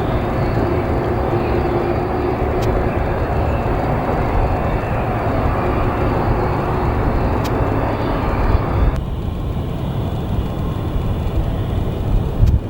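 Boeing 787 Dreamliner airliner noise during a landing: a steady rush of engine and airflow over a low rumble, with a few faint ticks. About nine seconds in, the sound abruptly loses its upper range.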